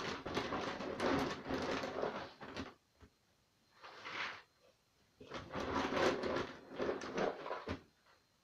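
Dry dog food being handled from its sack: rattling and rustling in three spells, a long one at the start, a short one about four seconds in and another long one from about five seconds in.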